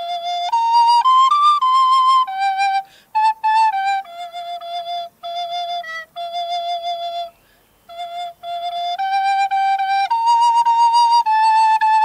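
Wooden recorder playing a solo melody of held notes, with short breaks between phrases and a longer pause a little past halfway.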